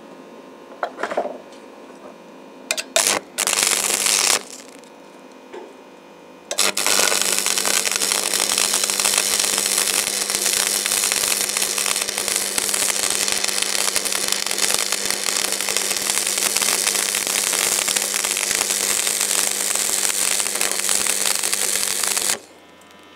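Stick (manual arc) welding on steel box section. The electrode is struck in a few short bursts, the arc catches about six and a half seconds in, and it then crackles steadily for about sixteen seconds before cutting off sharply as the rod is lifted.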